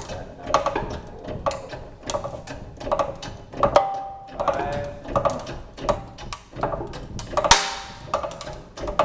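Hand pump of a 20-ton hydraulic shop press being worked in steady strokes, a sharp knock about twice a second, as a model timber joint is loaded toward failure. A louder crack comes near the end.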